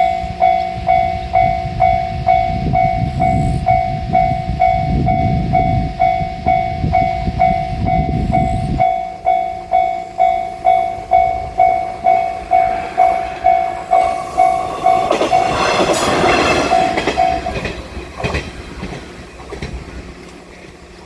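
Japanese level crossing warning bell clanging steadily, about two strikes a second, while a JR Shikoku 1500 series diesel railcar rumbles through. The train's low rumble swells and fades in pulses and cuts off about nine seconds in. A louder burst of noise comes later, and the bell stops near the end.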